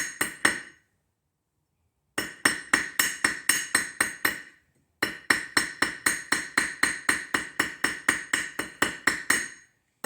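Hammer striking a fine silver ring on an anvil horn, applying hammer-mark texture: quick, even metallic strikes at about four a second, each ringing briefly. The hammering pauses shortly after the start and again for a moment about halfway, then resumes.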